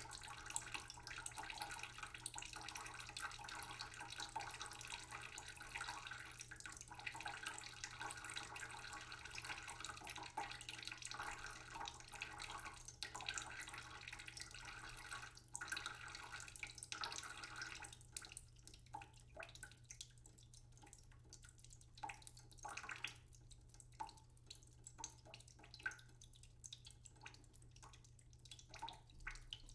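Tap water running slowly into a cooking pot in a sink; a little over halfway through the steady stream gives way to scattered drips.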